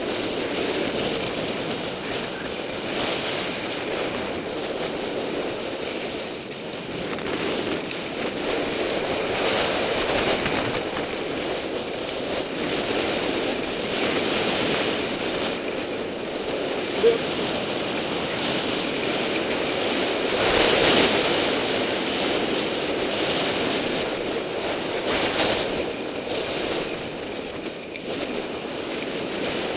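Skis hissing and scraping over groomed snow at speed, swelling and easing every few seconds with the turns, mixed with wind buffeting the microphone.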